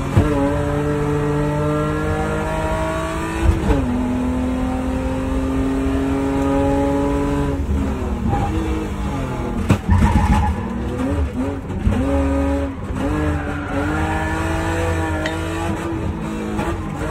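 A rally car's engine heard from inside the cabin under hard acceleration. The pitch climbs and drops sharply at upshifts near the start and about four seconds in. In the second half it rises and falls quickly as the car brakes, downshifts and powers through corners, with a few sharp knocks about ten seconds in.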